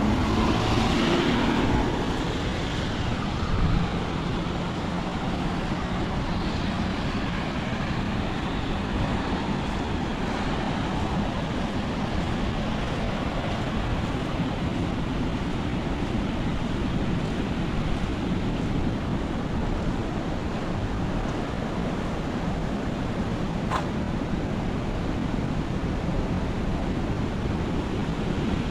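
Heavy rain falling steadily on an umbrella and the wet ground. In the first couple of seconds a vehicle passes, louder for a moment with a low engine hum.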